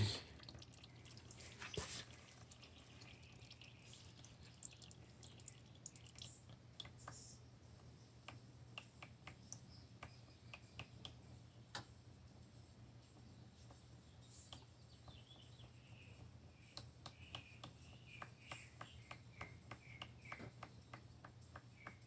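Near silence with faint, irregular drips of used motor oil falling from the motorcycle's drain hole into the drain pan, coming more often near the end.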